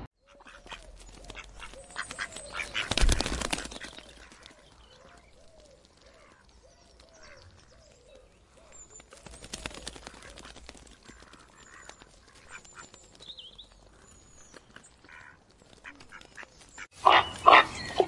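Waterbirds calling: a long run of short, evenly repeated quack-like calls, about two a second, through the first half, with a brief louder rush of noise about three seconds in. Louder animal calls start near the end.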